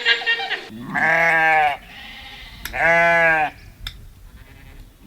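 Livestock bleating: two long bleats of steady pitch, each just under a second and about two seconds apart, with a third beginning at the very end. A rapid pulsing call fades out in the first moment.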